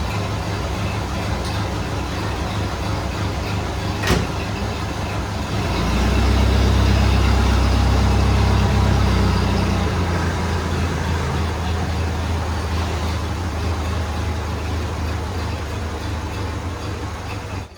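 1931 Ford Model A four-cylinder engine running steadily, its misfire largely cured after distributor work. A single sharp click comes about four seconds in. From about six seconds the engine gets noticeably louder for a few seconds, then eases back to its steady running.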